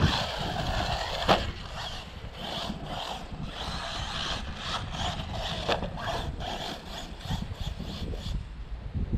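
Arrma Typhon 6S RC buggy's brushless electric motor whining in short bursts of throttle as it runs over grass, with a few sharp clicks and a low rumble underneath.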